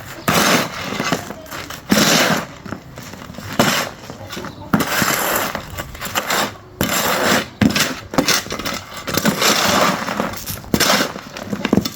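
An irregular series of crunching, scraping strokes from hand-tool building work, each lasting under a second.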